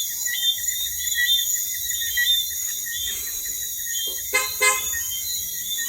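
Insects chirping steadily in short repeated trills, with a short horn-like toot about four and a half seconds in.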